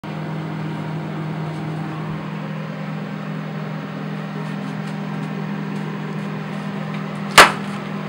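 Samsung microwave oven running with a steady hum while heating metal inside, with faint scattered ticks from about halfway in and one sharp, loud bang near the end.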